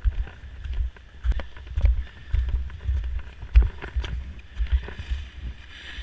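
Ski-boot footsteps crunching through slushy spring snow in an uneven rhythm of thuds, with sharper crunchy clicks over them.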